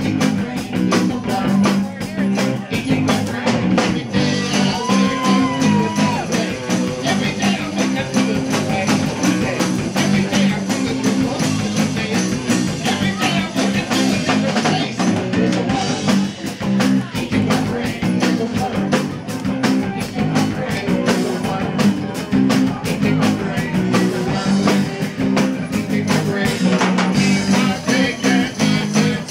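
A live rock band playing: electric guitars over a steady drum beat.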